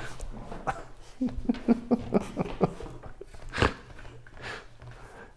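Short breathy bursts of laughter, with one sharp knock about three and a half seconds in.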